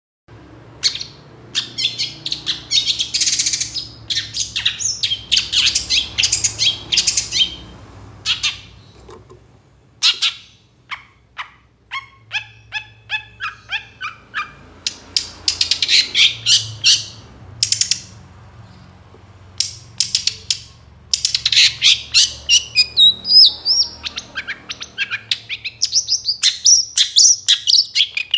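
Long-tailed shrike (cendet) singing loudly in rapid runs of harsh, scratchy chattering notes and sharp chirps, with two short lulls and a dense burst of chatter in the last third.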